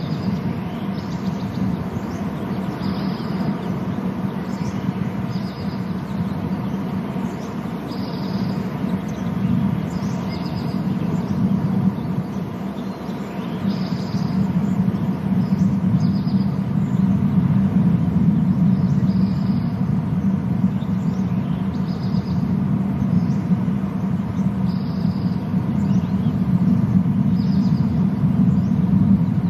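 Steady low outdoor rumble that grows louder about halfway through, with a small bird's short high chirp repeated every couple of seconds.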